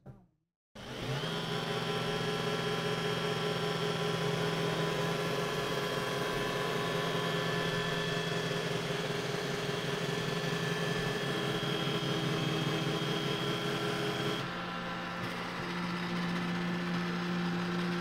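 iRobot Roomba i4 robot vacuum running as it drives back to its dock: a steady motor hum with a high whine that comes up about a second in. About fourteen seconds in the whine drops away and a lower, slightly quieter hum carries on.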